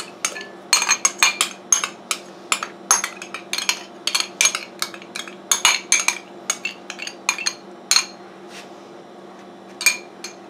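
A metal spoon clinking and tapping against a glass mixing bowl and the sour cream container as sour cream is scooped out. The sharp, irregular taps come a few times a second and thin out near the end.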